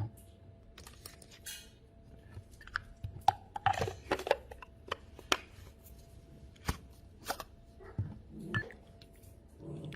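Scattered sharp clicks, taps and short rustles of small hard objects being handled, at irregular intervals, with a faint steady hum underneath.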